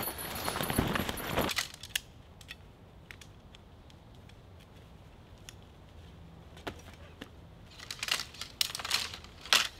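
Heavy canvas swag tent being flapped and spread out on dry leaf litter: a loud rustle through the first second and a half. It goes quiet after that, with scattered small clicks, and a run of rustles and clicks comes near the end.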